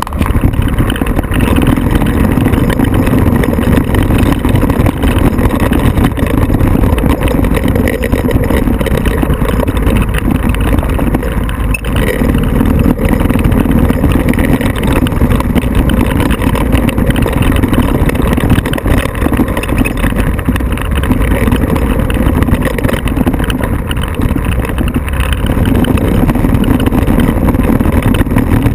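An off-road vehicle's engine running steadily close to the microphone, a loud continuous rumble that dips briefly about twelve seconds in.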